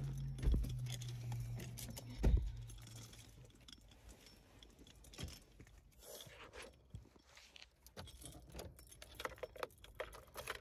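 Keys jangling and rattling, with handling clicks and two thumps in the first few seconds inside a car; a low steady hum fades out about three seconds in.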